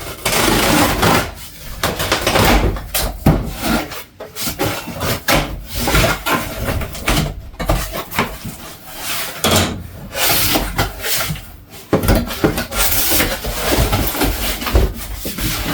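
Cardboard box being opened by hand: irregular scraping, rubbing and rustling of cardboard and packaging, with short sharp knocks throughout.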